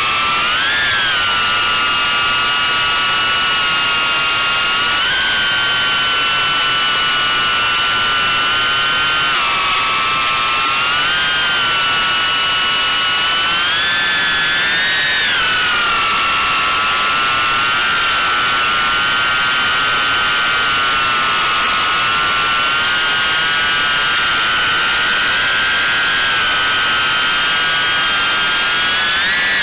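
Four brushless motors and ducted props of a 3-inch cinewhoop quadcopter whining steadily, close to the onboard camera. The whine is several tones that glide up together in short throttle surges, around a second in, about five, eleven and fifteen seconds in, and near the end, then settle back.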